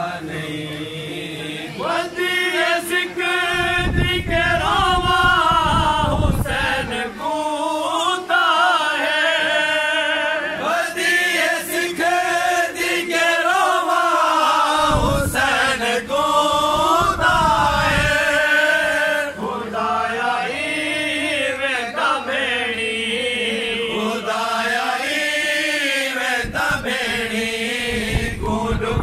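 Men's voices chanting a noha, an unaccompanied Shia mourning lament, in long wavering sung phrases.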